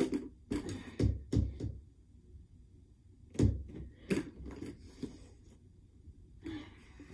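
Irregular knocks and thumps from a doorway pull-up bar shifting in the door frame and a body bumping the frame during pull-ups, several in the first second or two and a few more about three to five seconds in.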